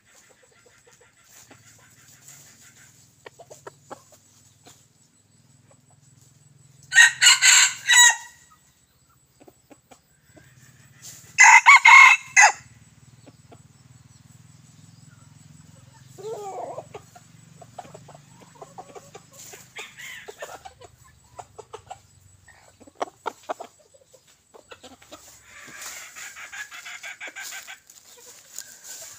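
Young red junglefowl cockerels, about eight months old, crowing: two loud, short crows of about a second each, around seven and eleven seconds in, with fainter clucks and calls between them.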